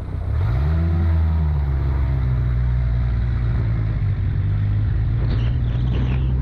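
Off-road vehicle's engine revving up about half a second in, then running steadily at the higher revs.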